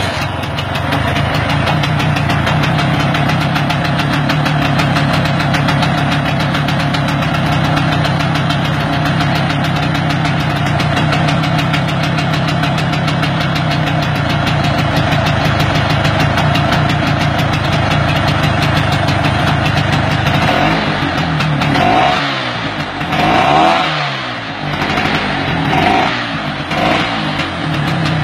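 Vespa two-stroke engine with a Pinasco 177 cylinder kit and lightened flywheel, running steadily just after firing for the first time. Near the end the revs rise and fall several times as the throttle is blipped.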